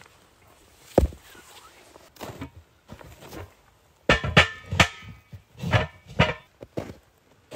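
A rock knocks down once about a second in. Then a large cast-iron cauldron with a metal lid is set on the rocks and shifted into place: two quick runs of metallic clanks and scrapes with a ringing tone, the loudest sounds here.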